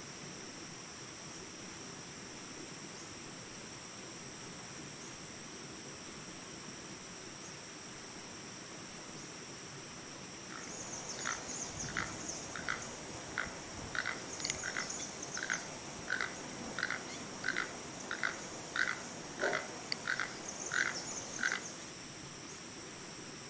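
Steady high-pitched insect buzz, joined about halfway through by a keel-billed toucan giving a run of short calls repeated about twice a second for some ten seconds.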